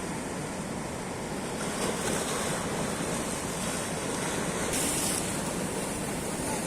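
Sea surf washing onto the shore: a steady rushing of waves that swells about two seconds in and again near five seconds.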